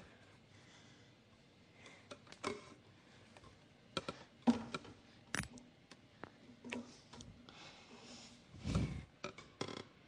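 Irregular sharp knocks and clicks, as of objects being handled, with a duller low thud near the end.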